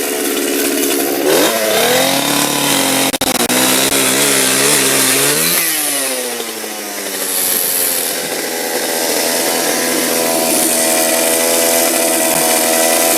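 Two-stroke chainsaw running: it revs up about a second in and holds high, drops in pitch around six seconds in, then revs back up and holds high again.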